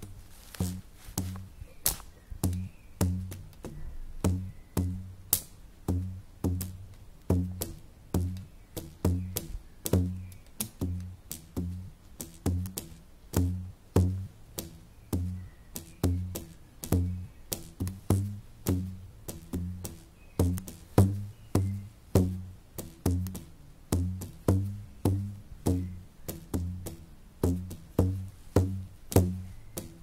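Bicycle wheel spokes played as a percussion instrument in a steady rhythmic pattern, about two strokes a second. Each stroke gives a sharp click over a short, low pitched thud.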